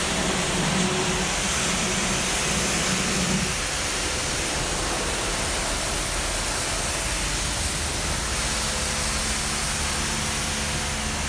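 A steady hiss, with a low hum underneath that stops about three and a half seconds in.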